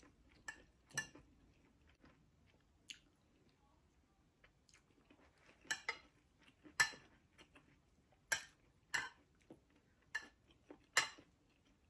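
Someone eating with a metal spoon from a ceramic bowl: faint scattered spoon clinks and scrapes against the bowl, mixed with chewing. The clicks cluster more thickly from about halfway through.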